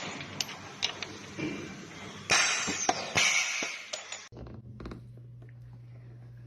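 Workshop clatter and knocks with two loud hissing rushes, then an abrupt change to a steady low hum with a few faint ticks.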